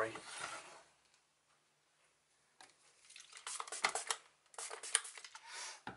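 Aerosol can of isopropyl alcohol spraying onto small steel freehub pawls and springs, a hissing run of short blasts that starts about two and a half seconds in and lasts about three seconds, cleaning crud off the parts.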